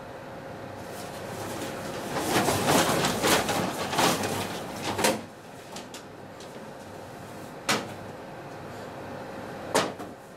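Paper shopping bags rustling and crinkling as they are handled: a dense spell of crackling for a few seconds, then two short sharp rustles later on, over a faint steady hum.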